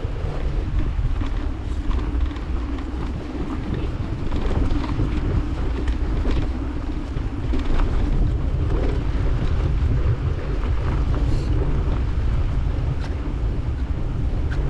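Wind buffeting the microphone of a GoPro on a moving bicycle: a steady low rumble with scattered light clicks and rattles.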